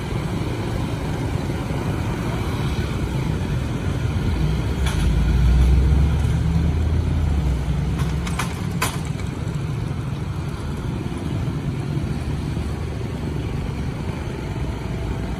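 Road traffic of motorcycles and cars running past, swelling louder as a vehicle passes close about five seconds in. A few sharp clicks follow a little after.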